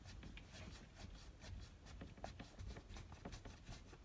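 Hand screwdriver driving a screw into the bottom corner fixing of a caravan window blind: faint, irregular clicks and scrapes as the screw is turned.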